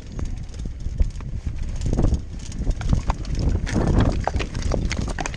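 Mountain bike clattering and rattling over loose rock on a steep trail: the tyres knock and crunch on stones and the bike rattles with each hit, over a low wind rumble on the camera's microphone.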